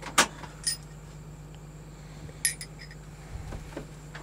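Chrome steel socket extensions clinking against each other and being set down on a counter: a sharp knock, then a few ringing metallic clinks and lighter knocks.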